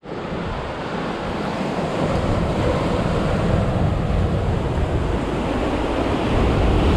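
Ocean surf breaking and washing over the boulders below, a steady rushing noise, with wind buffeting the microphone.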